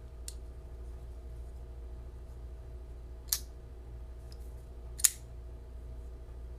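Flipper folding knife, a copy of the RJ Martin Overkill, being flipped: two sharp metallic snaps of the blade action, about three and five seconds in, the second the louder, with a faint click near the start.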